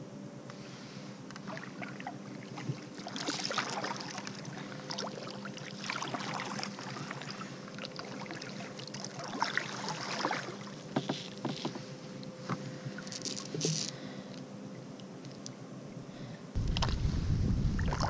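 Kayak paddle strokes in still swamp water: the blade dipping and splashing, with drips and small knocks, a surge every few seconds. Near the end, wind starts buffeting the microphone with a low rumble.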